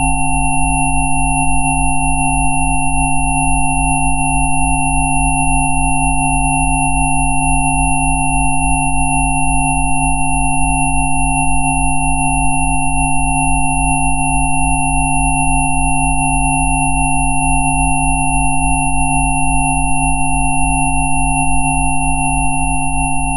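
Synthesised pure sine tones played together as a Rife 'healing frequency' track: a steady stack from a low hum, whose lowest tone pulses quickly, through mid tones up to a high thin whistle. Near the end a faint fluttering sound joins the tones.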